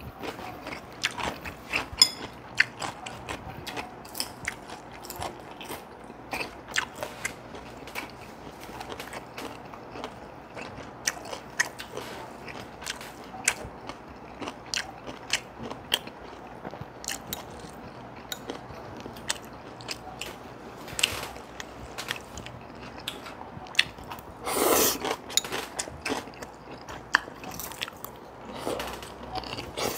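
People eating at close range: chewing and crunching on Korean side dishes such as kimchi and pickles, with many short, sharp clicks throughout. A louder, noisier sound of about a second comes roughly 25 seconds in.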